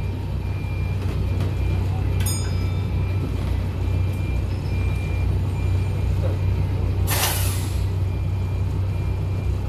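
An old 1999 Volvo city bus's diesel engine running steadily, heard from inside the bus, with a faint high beep repeating at regular intervals. About seven seconds in, a sharp hiss of air from the air brakes lasts just under a second.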